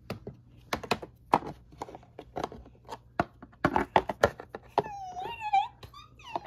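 Irregular clicks and taps of toys being handled and knocked against a hard surface, with a brief high-pitched squeaky vocal sound about five seconds in.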